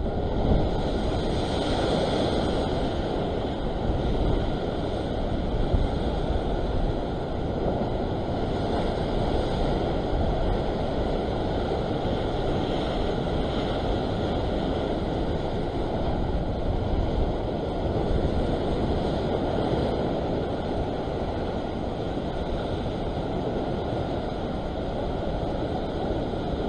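Rough sea surf churning and washing over a rock shelf: a steady rush of foaming water.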